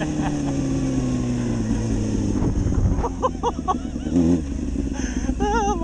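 Honda CBR600 inline-four engine in a dirt bike chassis, its revs falling steadily as the throttle is rolled off, then rising and dipping in quick uneven surges near the end.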